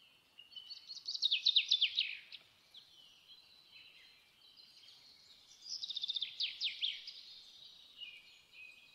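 A small songbird singing: two bursts of rapid, high trills made of quick falling notes, one about a second in and another past the middle, linked by thinner whistled notes.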